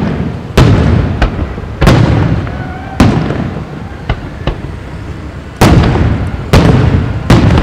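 Aerial firework shells bursting one after another, about eight sharp bangs, each followed by a rumbling echo that dies away over a second or so, with a few lighter cracks in between.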